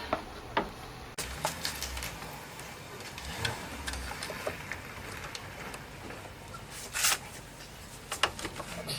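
Scattered light clicks and knocks of hands and metal parts, with a short scrape about seven seconds in, as a serpentine belt is worked by hand onto the engine's pulleys.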